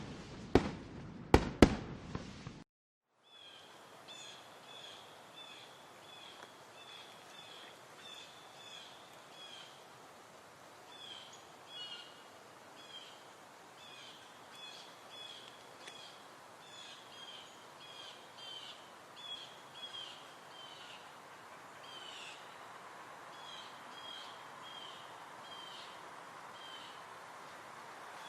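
A quick string of firecracker bangs that stops about two seconds in. After a brief gap comes a steady outdoor hiss with short, high chirps repeating a few times a second.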